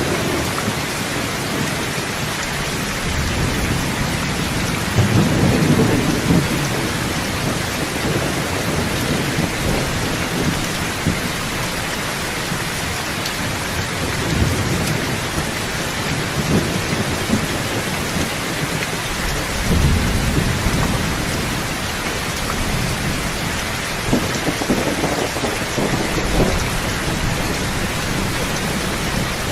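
Steady heavy rain falling, with low rolls of thunder rumbling several times, the strongest about five seconds in and again around twenty seconds in.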